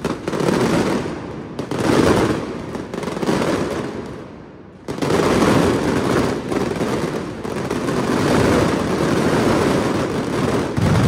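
Fireworks going off in a dense barrage: rapid bangs and crackles running together into a continuous rattle that swells and fades in waves. It dips briefly and comes back loud and sudden about five seconds in.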